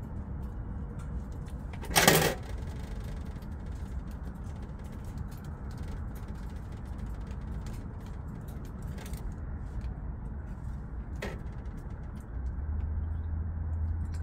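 Wood stove fire crackling faintly over a steady low rumble. A sharp knock comes about two seconds in and a lighter one near eleven seconds. A low hum joins near the end.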